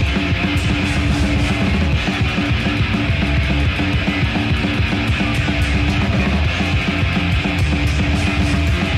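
Death metal band playing live: distorted guitars and bass over fast, dense drumming, steady and loud throughout.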